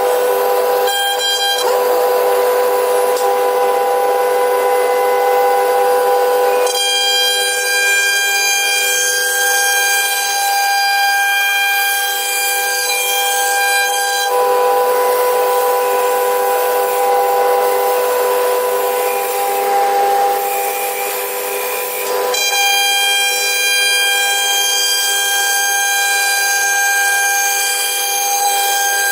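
CNC router spindle carving wood, running with a steady high whine. Its tone changes abruptly every several seconds.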